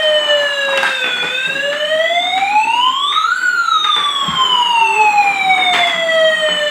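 Battery-operated toy fire truck's electronic siren wailing in a slow, even rise and fall of pitch, about six seconds per cycle. A couple of sharp clicks are heard over it.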